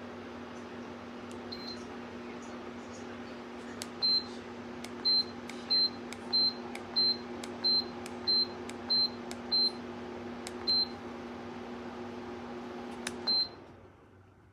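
Lasko tower fan running with a steady motor hum and air rush, while its controls give about a dozen short high beeps in quick succession. After one last beep near the end the fan shuts off and the hum and air noise die away.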